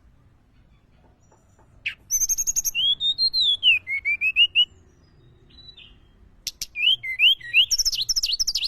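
Tledekan gunung singing: two phrases of clear whistled song, the first starting about two seconds in with a long arched note and a run of short notes, the second about six and a half seconds in, a quicker string of sharply sliding notes.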